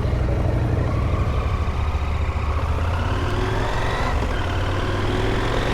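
Motorcycle engine pulling at low speed, its pitch rising steadily as it accelerates, with a gear change about four seconds in, after which it climbs again.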